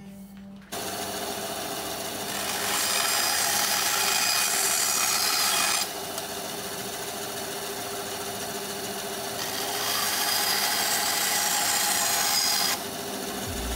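Bandsaw running, cutting the waste ends off a turned wooden stool stretcher. The sound grows louder twice, for about three seconds each time, while the blade is in the wood.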